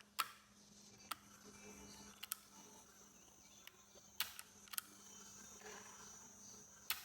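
Scattered sharp plastic clicks and taps from handling a Casio TP-50 cassette recorder while its capstan belt is fitted, about six in all, over a low steady hum.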